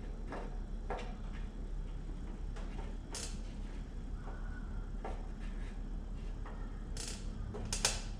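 Scattered metallic clicks and clinks of hand tools working on a John Deere 175's steering column and switch parts, over a steady low hum. The loudest is a quick double clink near the end.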